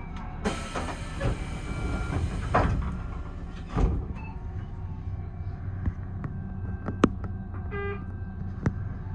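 Doors of a Tobu 6050 series train closing: a long hiss, ending in a heavy thump about four seconds in. Then the standing train's steady low hum, with two sharp clicks and a short buzz near the end.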